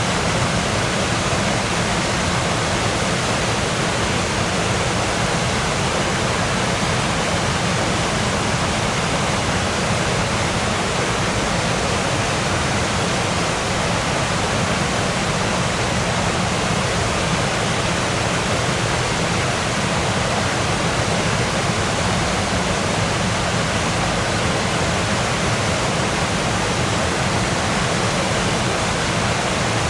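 Waterfall: water falling and rushing in a steady, unbroken hiss spread evenly from low to high pitch.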